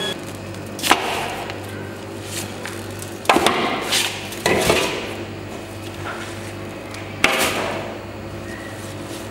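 Bone-in pieces of raw lamb carcass dropped one after another into a large metal basin: about five heavy thuds at uneven intervals.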